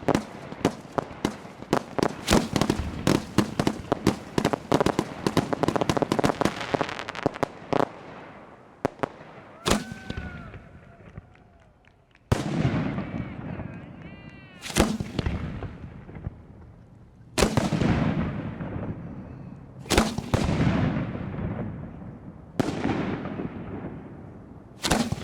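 1.3G display fireworks: for the first eight seconds or so, a rapid barrage of bursts and reports. After that comes a single loud shell burst about every two and a half seconds, each one fading away before the next.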